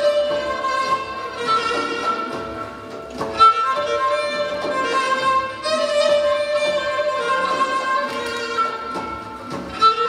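Live Persian traditional ensemble music: a melody in long held notes, with the qanun played alongside, and a brief dip in loudness about three seconds in.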